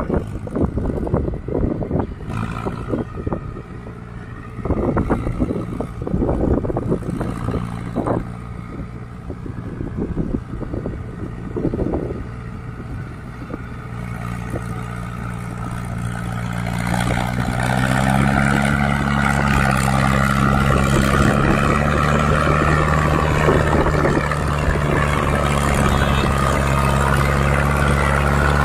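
Mahindra Arjun tractor's diesel engine hauling a heavily loaded trolley. It is faint under irregular thuds over the first half, then grows louder from about halfway as the tractor approaches. Its pitch steps up near two-thirds in and then holds steady under load.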